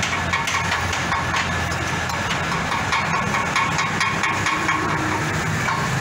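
Small engine running steadily, with scattered metallic knocks and clanks from the concrete mixer being worked.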